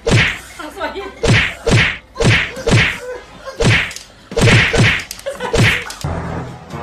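A cat's paw swatting at a French bulldog: a run of about ten sharp whacks, often in quick pairs.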